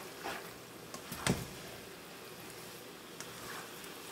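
Rice noodles and vegetables sizzling gently in a nonstick frying pan as they are stirred and tossed with a spatula, with a few short scrapes of the spatula against the pan, the loudest about a second in.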